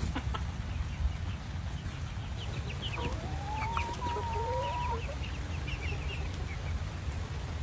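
Silkie chickens clucking with short, high chirps, and one drawn-out call about three seconds in that lasts about two seconds, over a steady low rumble.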